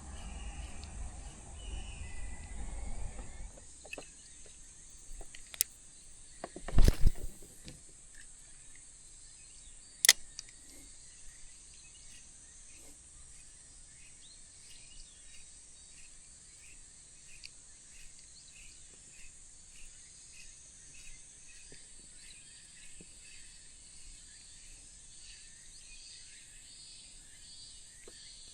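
Insects chirping steadily in a high-pitched outdoor chorus with a faint regular pulse. There is some low rustling in the first few seconds, a loud knock about seven seconds in, and a sharp click about ten seconds in.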